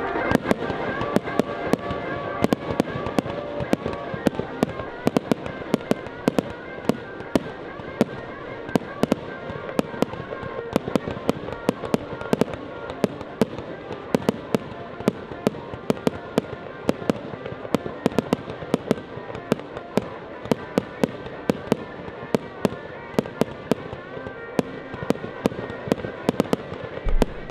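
Fireworks going off in a rapid, irregular series of sharp bangs and crackles, several a second, over music playing underneath.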